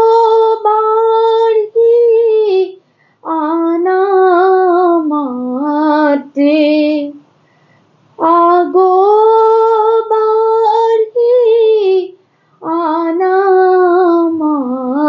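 A solo female voice singing an Assamese dihanaam, a devotional chant to Durga, in four long drawn-out phrases with short breaks between them, unaccompanied.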